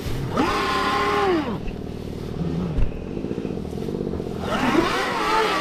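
Dirt bike engine revving in two bursts, each climbing in pitch and then dropping away, with a short blip of throttle between them.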